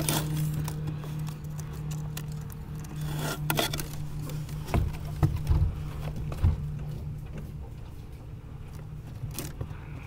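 Engine-monitor wire harness being handled and fed through the firewall behind a light aircraft's instrument panel: rustling and scraping of the wires, with a few sharp knocks in the middle, over a steady low hum.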